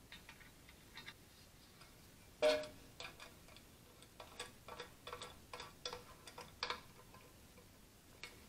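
Small metallic clicks and ticks of a toggle switch's mounting nut being threaded and turned by hand on a painted sheet-metal tractor dash panel. One louder knock about two and a half seconds in, with a brief ring.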